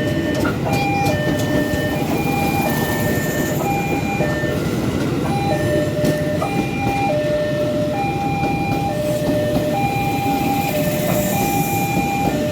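Railway level-crossing warning alarm sounding an electronic two-tone signal that alternates unevenly and stutters. This is the 'coughing' the crossing's alarm is described as doing. Under it runs the steady rumble of a train passing.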